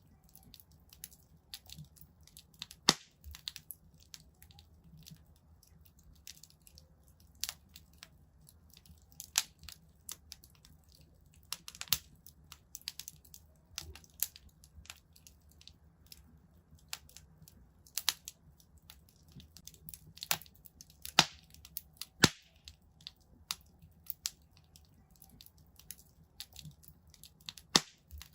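Wood fire crackling in a fireplace: irregular sharp pops and snaps over a low steady rumble of flame, with louder pops about 3 s in, around 12 s, several between 18 and 22 s, and near the end.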